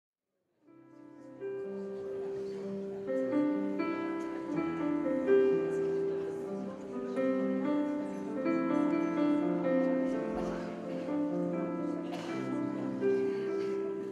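Piano playing a slow introduction to a ballad, with held, overlapping notes, starting about half a second in from silence.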